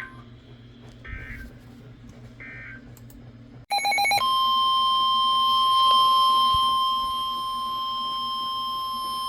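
Emergency Alert System tones on NOAA Weather Radio: two faint short beeps, then about three and a half seconds in a brief burst of SAME data tones, followed by the steady 1050 Hz warning alarm tone, which is loud and keeps sounding. The alarm tone signals that a new warning is about to be read.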